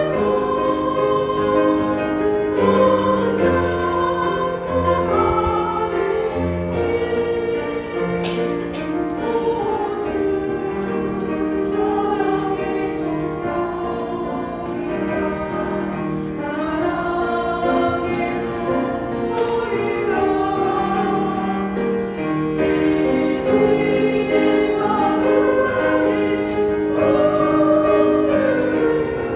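Christian choral music: a choir singing a gospel song over instrumental accompaniment, for a choreographed dance.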